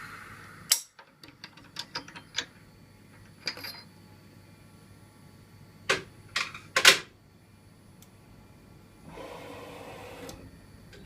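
Sharp metallic clicks and clatter: a quick run of clicks, then three louder clacks in the middle, and a brief steady whir near the end.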